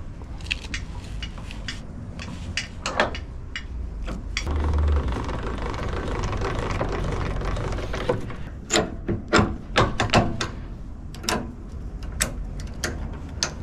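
Metal clicks and clanks of a trailer hitch being coupled: the Fulton jockey wheel crank is wound to lower the coupling onto the car's tow ball, then the coupling latch is worked by hand, giving a run of sharp clanks in the second half.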